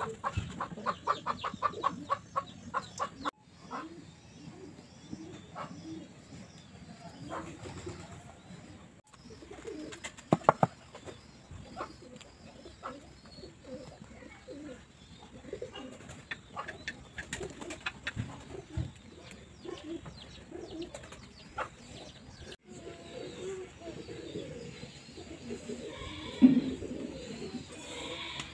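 Pigeons cooing again and again. A quick run of light taps fills the first three seconds, and scattered knocks and rustles come as rice flour and a net cloth are handled.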